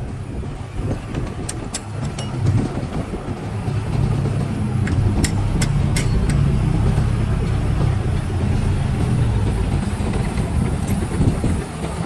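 Heavy diesel earthmoving machinery running, getting louder about four seconds in, with a few sharp clinks around two seconds in and again around five to six seconds in.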